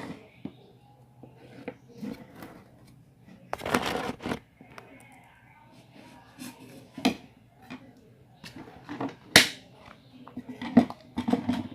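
Irregular knocks, clicks and short rustles of small objects being handled. The longest rustle is about four seconds in, and the sharpest click comes near the end.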